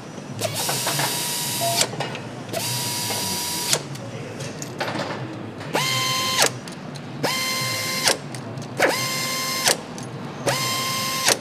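Hanging power nutrunner tightening bolts on a BMW boxer motorcycle engine: six short runs of about a second each. Each rises quickly to a steady whine and ends in a sharp click as the tool reaches torque and stops.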